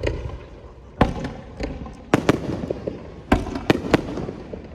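Aerial fireworks shells bursting: a string of about six sharp bangs, each followed by an echoing rumble. Two bangs come in quick succession about two seconds in, and three come close together near the end.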